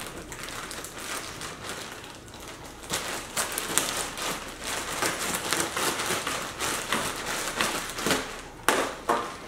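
Knife slitting open a plastic poly mailer bag, the plastic crackling and crinkling as it is cut and pulled apart, louder near the end.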